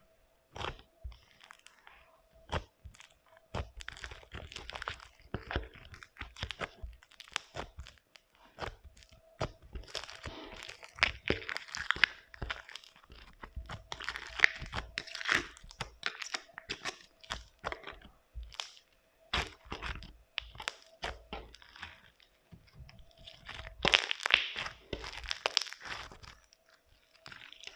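Floam slime full of foam beads being squeezed and kneaded by hand, the beads crunching and crackling in rapid, irregular clicks, with louder spells about ten seconds in and near the end.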